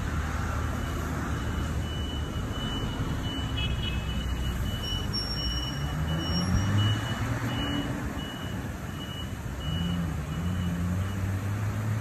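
Road traffic rumble, with a rapid run of short high-pitched beeps, about two a second, that stops near the end.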